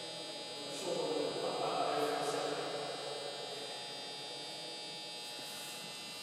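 A steady hum with a faint higher buzz running throughout; a louder, muffled rumbling sound swells about a second in and fades out by about three seconds.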